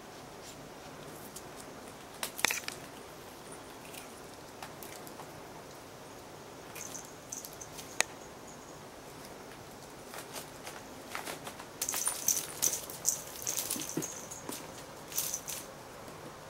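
Cats batting at, biting and chasing a ribbon wand toy on a bamboo floor mat: scattered light taps, clicks and rustles of paws and toy, with a busy flurry about twelve seconds in.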